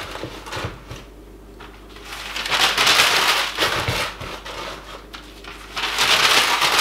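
Sheets of newspaper being crumpled and stuffed into leather boots, in two spells of crinkling: one about two and a half seconds in, lasting about a second, and another starting near the end.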